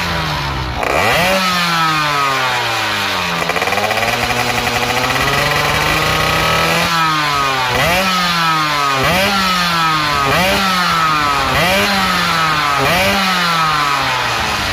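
Yamaha F1ZR 116cc two-stroke engine with an expansion-chamber exhaust being revved on the stand: a sharp throttle blip about a second in, a few seconds held at a higher steady speed, then quick blips about once a second, each dropping straight back.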